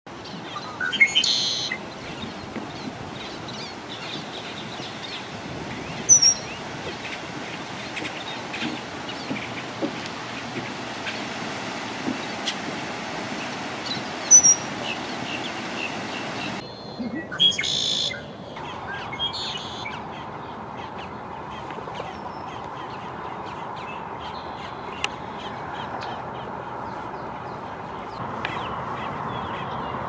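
Male red-winged blackbird giving a few short, high calls, well spaced, over steady background noise.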